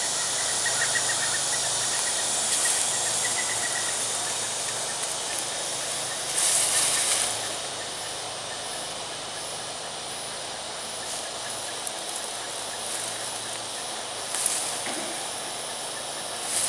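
Steady high-pitched drone of insects over a constant hiss, with a few brief rustles, the loudest about six and a half seconds in.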